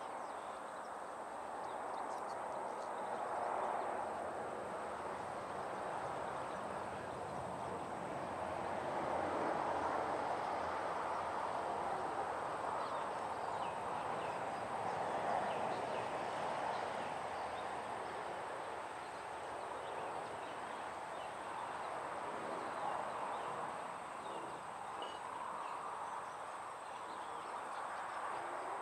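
Steady outdoor background noise that swells and fades slowly, with faint scattered high chirps.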